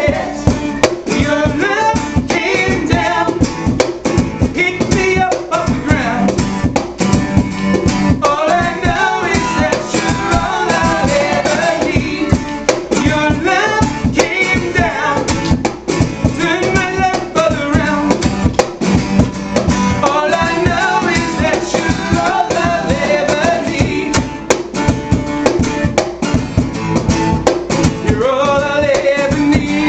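Live acoustic band music: strummed acoustic guitar and a cajon beat under sung vocals.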